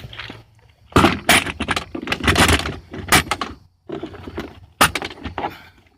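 Drill bits and other small metal tools rattling and clinking as they are handled in a tool bag, in a run of sharp clatters with a short pause in the middle.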